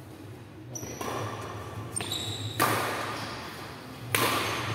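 Badminton racket strokes hitting the shuttlecock during a doubles rally, each sharp crack ringing on in the hall's echo. The two loudest hits come about a second and a half apart, the last a jump smash near the end, with short high squeaks of shoes on the court between them.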